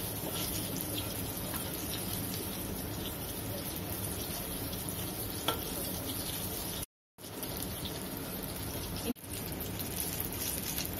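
Flour-battered eggplant sticks deep-frying in hot oil in a wok: a steady sizzle, with a sharp tick about halfway through and the sound cutting out for a moment about seven seconds in.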